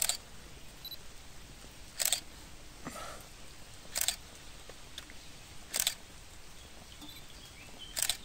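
Camera shutter clicking once about every two seconds, five sharp clicks in all, over faint outdoor background.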